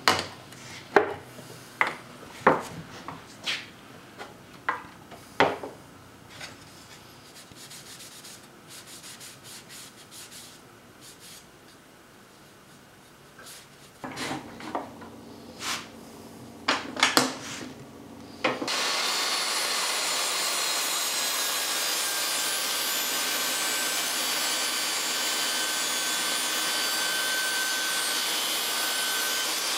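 Scattered knocks and clicks of wood and small objects handled on a workbench and saw table. About two-thirds in, a table saw starts running with a loud, steady noise as a pine block is fed through the blade with a plywood push stick.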